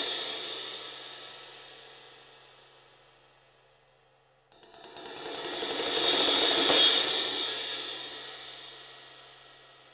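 A 19-inch Traditional Ap crash cymbal. An earlier swell rings out and fades away over the first three seconds or so. About four and a half seconds in, rapid repeated strokes build a new swell that peaks a couple of seconds later, then washes and rings down slowly.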